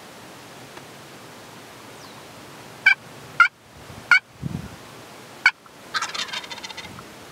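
Wild turkey tom gobbling once near the end, a fast rattling call, after four short, sharp clucks spread over a few seconds.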